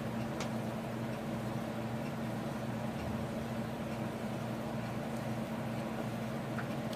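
Steady low electrical hum. There is a faint click about half a second in.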